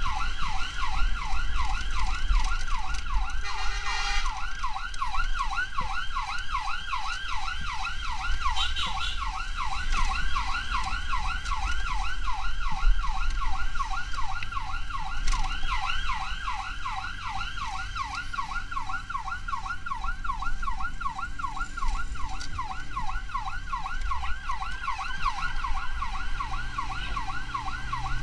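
Emergency vehicle siren in a fast yelp, about three sweeps a second without a break, over a low vehicle rumble. Near the end an engine revs up.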